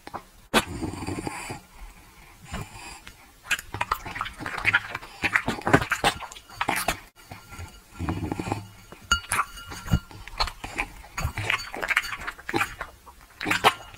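A dog chewing and smacking on pieces of food, with many short clicks and the clink of a ceramic plate.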